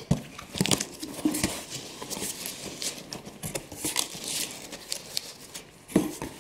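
Cardboard box flaps being pulled open and folded back by gloved hands: cardboard scraping and rustling against packing paper, with many small clicks and a few sharper knocks.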